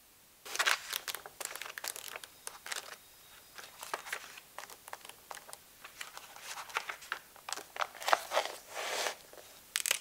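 Pages of a paperback book flipped through by hand: a run of quick, crisp paper rustles and flicks, with a short louder rustle near the end.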